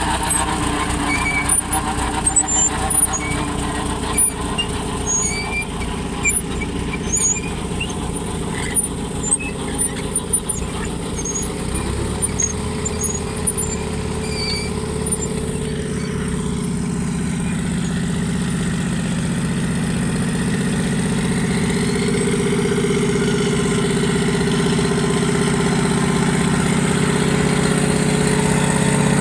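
Austin Model R tractor engine running steadily while pulling a plough, growing louder in the second half. Short high chirps sound over it through the first half.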